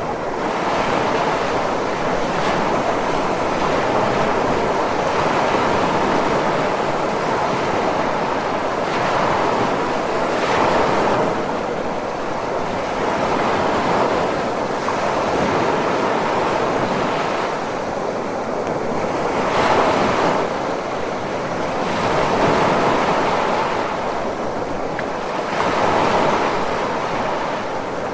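Ocean surf: a continuous rushing of waves that swells and eases every few seconds.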